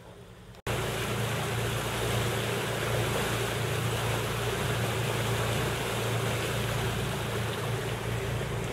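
A boat's engine running steadily under a loud rush of wind and water noise. It starts abruptly about half a second in.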